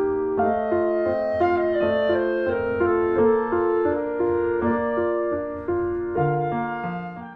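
Background music: a keyboard melody of short, even notes, fading out near the end.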